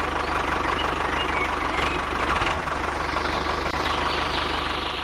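An engine idling steadily, with an even, rapid low chugging.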